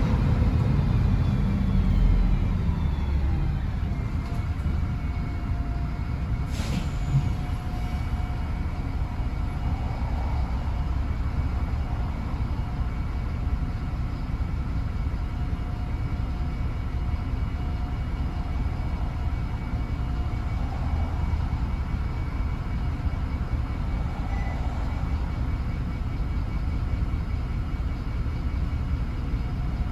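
MAN 18.240 bus diesel engine running steadily, heard from inside the bus, with a faint steady whine from the cooling fan drive. A falling tone fades out in the first few seconds, and there is one brief sharp sound about seven seconds in.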